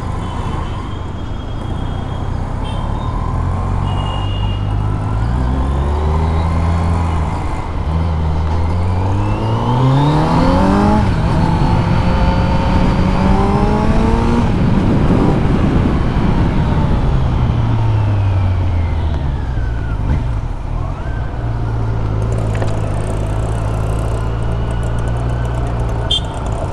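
Kawasaki Z900 inline-four engine under way, its pitch climbing in steps as it pulls through the gears and dropping back at each shift. About two thirds of the way in it eases off and falls, and it settles into a steady low note near the end.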